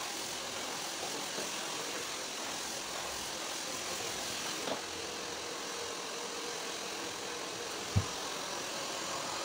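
Hand-held hair dryer running steadily, blowing on a client's hair during a blow-dry, with a short low thud about eight seconds in.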